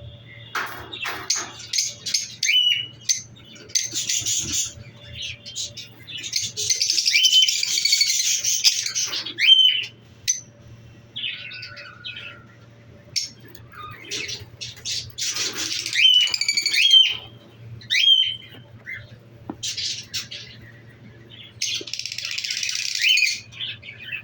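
Lovebirds calling: a string of shrill, sharp chirps that rise and fall quickly, mixed with harsh, scratchy bouts of chatter lasting a second or three.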